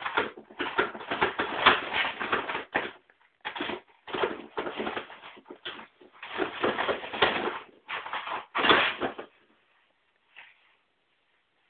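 Paper towels rustling in irregular bursts as a cat paws and pulls at the roll, unrolling it; the rustling stops about nine seconds in.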